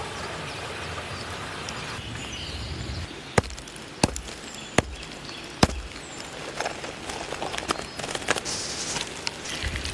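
Wood campfire crackling over a steady hiss, with four sharp pops about a second apart in the middle and lighter crackling after them.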